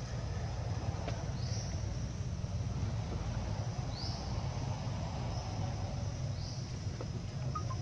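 Outdoor background: a steady low rumble, with a short high rising chirp that repeats about every two and a half seconds, three times.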